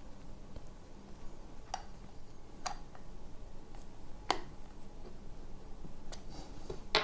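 A few scattered sharp clicks of a small hand tool on metal as the nut on an infrared video goggle's eyepiece pivot bolt is tightened down on a new spring, the clearest about four seconds in and at the end.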